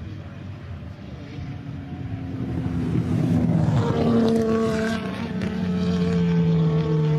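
Ferrari 250 GT SWB's V12 engine at racing speed. It grows louder over the first few seconds, then runs on a steady high-revving note.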